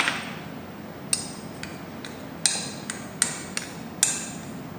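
A metal spoon clinking and scraping against a small bowl as condensed milk is spooned out into a glass mug: a series of sharp, irregular clinks.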